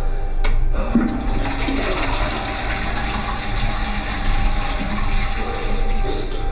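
Toilet flushing: water rushes through the bowl, setting in about half a second in and dying away near the end.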